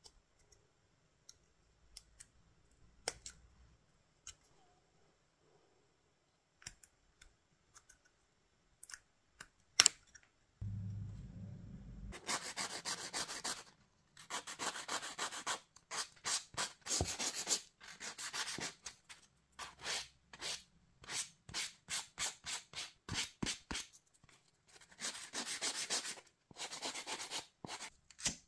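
Hand sanding of a small PVC piece: quick rubbing strokes, about two to three a second, in runs with short pauses over the second half. Before that come scattered light clicks and taps of handling, and a brief low hum about eleven seconds in.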